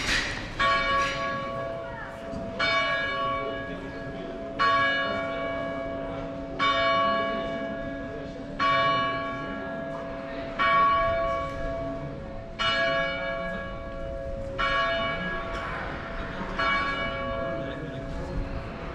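A large tower bell strikes slowly, about one stroke every two seconds. Each stroke rings on, and its low hum carries through the gaps between strokes.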